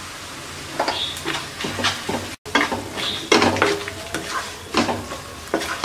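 Wooden spatula stirring and scraping onions and spice pastes around a karahi of hot oil, with a steady sizzle under irregular scraping strokes.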